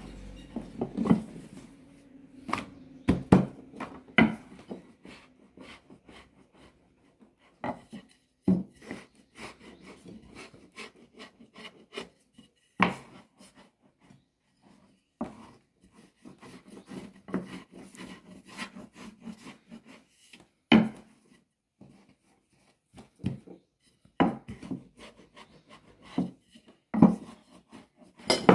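Wooden rolling pin rolling out dough on a wooden table: a low rumble while it rolls, broken by irregular sharp knocks of wood on wood.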